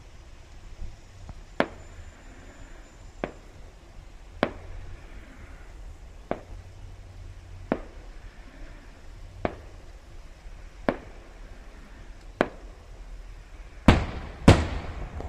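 Aerial firework shells bursting, a sharp bang about every second and a half, with the two loudest coming close together near the end.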